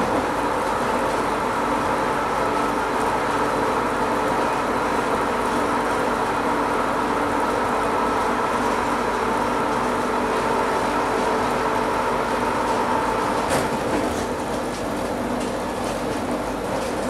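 Taipei Metro Wenhu Line Bombardier rubber-tyred automated train heard from inside the car, running through a tunnel: a steady rush of tyres and running gear with a few held motor hums. A short click comes near the end, and the sound eases slightly as the train leaves the tunnel.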